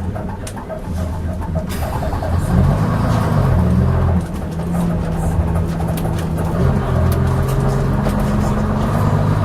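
Leyland Atlantean double-decker bus's diesel engine pulling under way, heard from on board. Its pitch rises about two seconds in and drops sharply just after four seconds, as at a gear change, then shifts again later. Short knocks and rattles from the bus run throughout.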